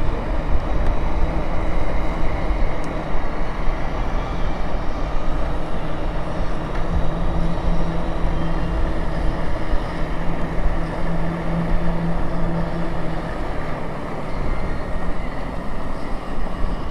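Wind buffeting the microphone over the rumble of tyres on the road from an electric two-wheeler cruising at steady speed. A steady low hum rises under it for several seconds in the middle.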